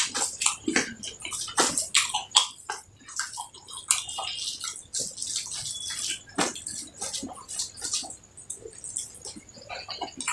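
Wet, sticky eating sounds: irregular mouth smacks, clicks and chewing of a person eating rice with fish curry, in a quick uneven patter.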